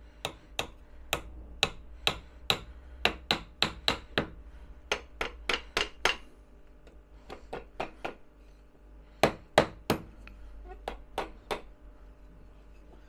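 Small hammer driving nails into a frame of thin wooden slats: a quick run of sharp taps, about two to three a second, then after a short pause a few more groups of strikes that stop near the end.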